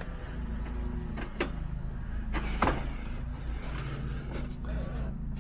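Steady low mechanical hum with scattered clicks and knocks from hand work on a heat pump's outdoor unit; the sharpest knocks come about one and a half and two and a half seconds in.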